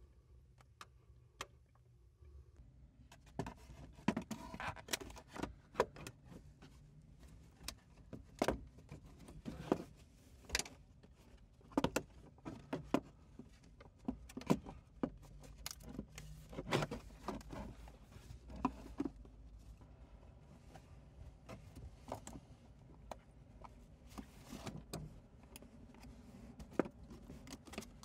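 Scattered clicks, taps and knocks of a floor board and pedal-area parts being handled and fitted around the pedals in a car footwell, beginning about three seconds in.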